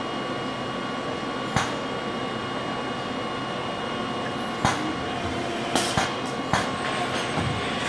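Robotic tube-bending cell running: a steady machine hum with faint steady whines. Five sharp metallic clicks stand out, one about a second and a half in and four in quick succession from about five to six and a half seconds in, as the robot and the bender's clamps work the tube.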